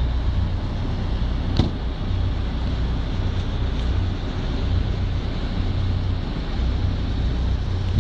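A boat's inboard engine running steadily at low revs, with wind buffeting the microphone; a single short knock about one and a half seconds in.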